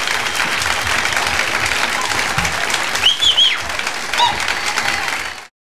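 Live audience applauding at the end of a song, with a couple of high cheers about three seconds in and another about a second later; the sound cuts off abruptly just before the end.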